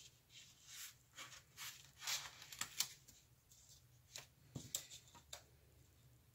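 Paper handled by hand: faint, irregular rustles and small taps of a planner page and sticker sheets being moved.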